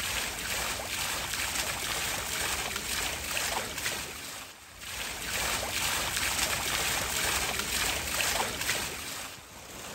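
Shallow stream running over stones, a steady rush of water, as a bowl is rubbed and rinsed in it. The sound drops away briefly about halfway through and again near the end.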